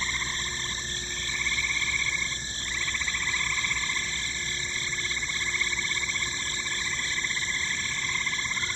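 A chorus of frogs calling steadily, many rapid trilling calls overlapping into one continuous pulsing din.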